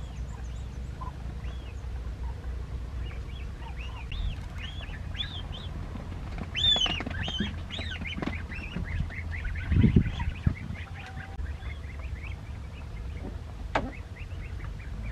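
Young waterfowl chick peeping: a steady stream of short, high, arched peeps, busiest a little past the middle. A dull thump about ten seconds in is the loudest moment, and a sharp click comes near the end, over a low rumble.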